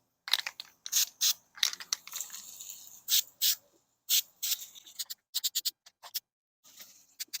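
An aerosol can of bed liner spray being handled and shaken, its mixing ball rattling in quick runs of sharp clicks, with a brief hiss about two seconds in.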